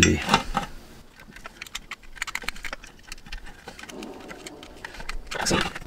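Light clicks and scrapes of a small screwdriver working the screw terminal of a Shelly 1 relay module as a wire is fastened, with the plastic housings being handled.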